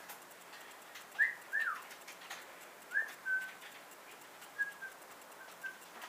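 Several short whistled notes spaced a second or two apart, some sliding up or down in pitch, others held briefly on one note.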